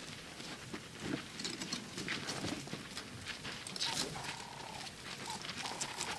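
Animal sounds outdoors: a run of short clicks and scuffs, then from about four seconds in a short mid-pitched call repeated four times.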